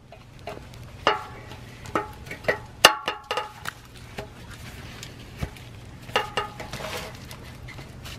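Metal parts clanking and clinking as they are handled during a muffler replacement, each knock ringing briefly. The knocks come in a quick run in the first half, the loudest about three seconds in, and a few more around six seconds in.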